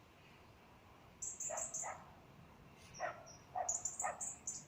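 A dog barking in short, separate yaps, about five across the few seconds. Between them, a bird sings runs of quick, very high chirps, once about a second in and again near the end.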